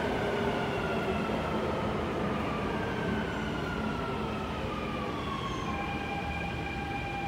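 Alstom Dubai Metro train's electric traction motors whining as it brakes into the station, the whine falling steadily in pitch. About six seconds in, as the train comes to a stop, the falling tones give way to a steady hum.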